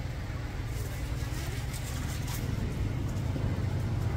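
Steady low engine hum.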